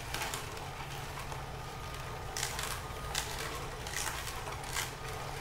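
Omega VRT330 vertical low-speed (80 RPM) auger juicer running with a steady low motor hum while it crushes cucumber fed down its chute. Short crackling crunches come through, about one a second in the second half.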